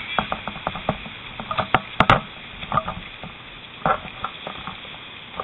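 Burning trailer crackling and popping: irregular sharp snaps, several a second, with a couple of louder pops about two seconds in.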